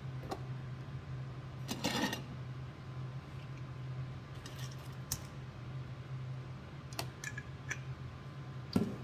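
Light clicks and a short rattle from a glass chili sauce bottle being handled, its cap twisted off and then back on after pouring, over a steady low hum.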